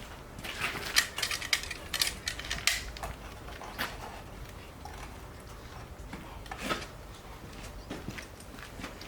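Irregular metallic clicks and knocks of equipment being handled, several in quick succession during the first three seconds, then single knocks about four and seven seconds in.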